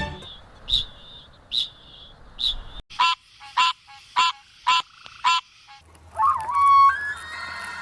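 A series of repeated animal calls: short high calls about once a second, then five louder calls about half a second apart. Near the end comes a wavering call that settles into a steady held tone.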